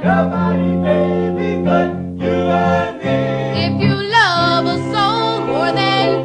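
Background music with singing: sustained vocal lines over a steady bass, with a brief dip about two seconds in.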